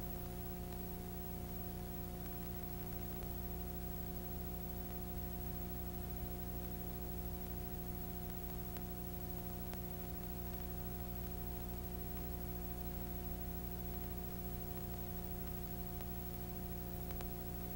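Faint, steady electrical hum of several low tones over an even hiss, with no music or voice: a silent stretch of an old analog videotape's audio track carrying mains hum.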